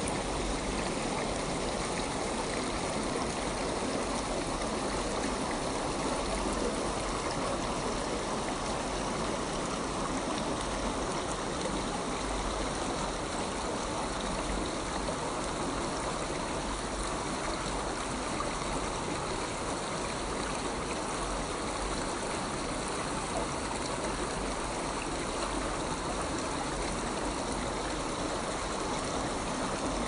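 Shallow stream flowing over and around stones, a steady babble of running water.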